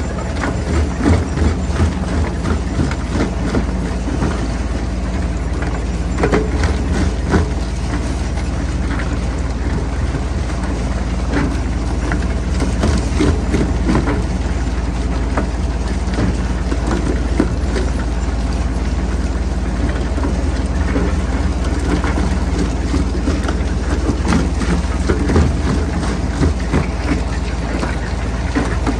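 Jaw crusher running with a steady low drone, with irregular cracks and knocks of rock being broken between its jaws.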